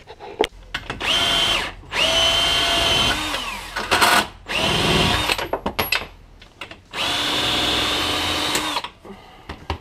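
Ryobi 18-volt cordless drill spinning out bolts in five bursts of a steady whine, the longest nearly two seconds, with the pitch winding down as the trigger is let off, and small clicks of the socket in between.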